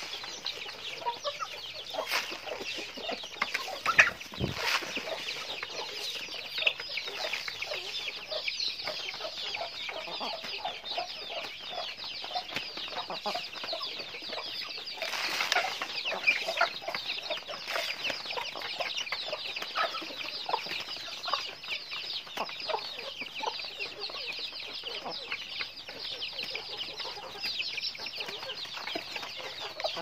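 A flock of chickens clucking as they peck at feed in a trough, with scattered sharp pecking taps and one louder thump about four seconds in. A dense, high-pitched chirping runs underneath the whole time.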